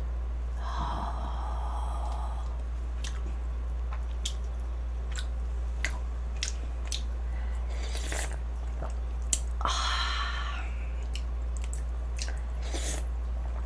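Close-up eating sounds: slurps of spicy jjamppong cup-noodle broth, with wet chewing and small mouth clicks in between. The longer slurps come about a second in and again near ten seconds.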